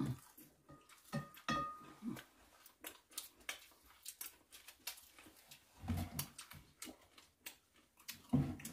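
Quiet eating sounds: chewing and mouth noises with scattered light clicks of chopsticks, spoon and dishes, and a couple of heavier soft knocks, about six seconds in and near the end.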